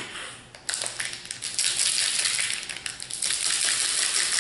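Foil Magic: The Gathering booster pack wrapper being opened and crinkled by hand: a sharp click, then a dense, crackling rustle starting under a second in and going on steadily.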